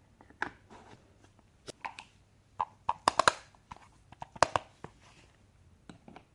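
Small plastic toy pieces clicking and tapping as they are handled and set down, in irregular bursts with a quick cluster of taps about three seconds in and another loud tap about a second later.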